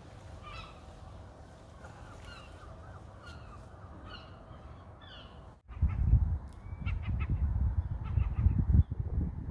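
Birds calling over and over in short chirping calls. After an abrupt break about halfway through, a loud, uneven low rumble of wind on the microphone takes over, with the birds still calling above it.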